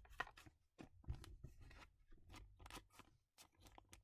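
Faint, irregular clicks and rustles of glossy trading cards and plastic card sleeves being handled and slid against each other.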